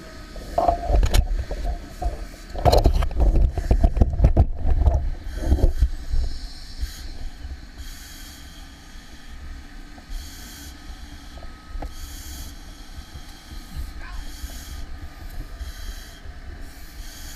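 A firefighter breathing through an SCBA facemask regulator, a hiss roughly every two seconds, over the steady low rumble of fire apparatus engines running. In the first few seconds, knocks and rustling of gear being handled.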